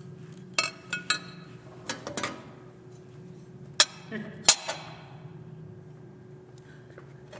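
A scatter of sharp clicks and knocks, with two louder clunks near the middle, as a motorcycle battery and its lid are handled and pushed into the battery compartment.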